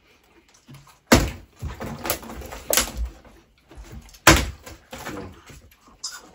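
Plastic bottle tossed in bottle flipping, landing with sharp thuds on a hard surface, several in a row, the loudest about a second in and about four seconds in.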